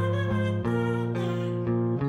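Instrumental background music with held notes that change every second or so.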